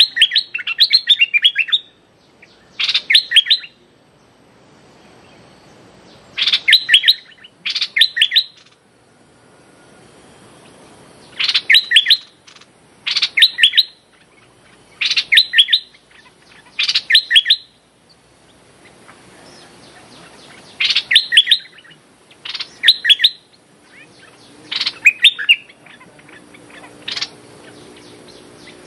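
Stripe-throated bulbuls calling: short bursts of quick, sharp chattering notes, often in pairs, repeated every one to three seconds with pauses between.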